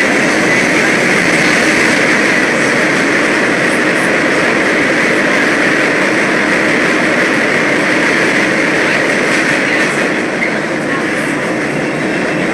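MBTA Orange Line subway train running: a steady rush of wheel and rail noise that eases slightly near the end.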